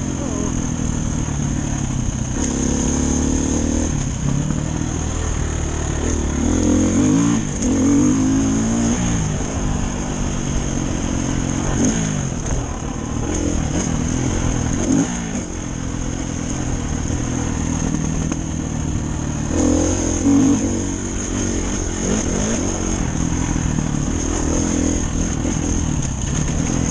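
Dirt bike engine running on a trail ride, its pitch rising and falling over and over as the throttle is opened and closed.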